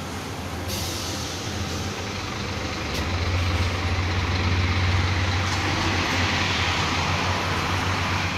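Bus diesel engine running with a steady low hum and road noise. A hiss joins in under a second in, and the engine hum grows louder about three seconds in, after a click.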